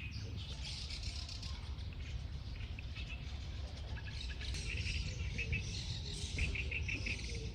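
Outdoor ambience: small birds chirping in short, quickly repeated high notes over a steady low rumble.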